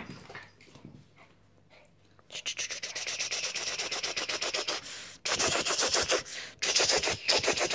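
Puppies scuffling right against the microphone: a fast, even, scratchy rubbing that starts about two seconds in and stops briefly about five seconds in.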